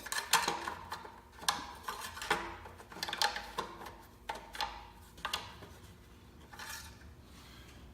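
A string of light clicks and clatters from handling a lawn mower's oil dipstick and filler tube during an oil-level check. The clicks come in irregular bunches and thin out over the last couple of seconds.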